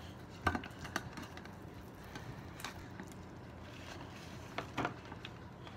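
Sticky glue-and-borax slime being kneaded by hand: faint scattered squelches and sticky clicks, a few louder smacks about half a second in and near the end.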